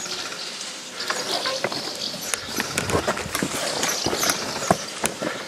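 Hurried footsteps on loose ground: a run of irregular crunches and clicks.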